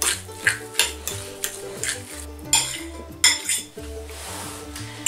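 Metal utensil stirring ricotta in a ceramic bowl: repeated short clinks and scrapes against the bowl, coming irregularly over the whole stretch.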